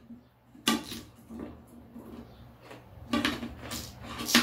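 Knife clicking and tapping against a plate while slicing Korean melon (chamoe): one sharp tap about a second in, then several more near the end.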